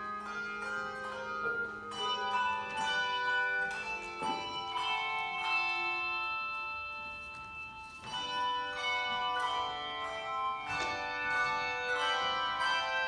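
Handbell choir ringing a piece: many handbells struck together in chords, their clear tones ringing on and overlapping. About midway the chords are left to ring and fade, then new strikes come in around 8 s.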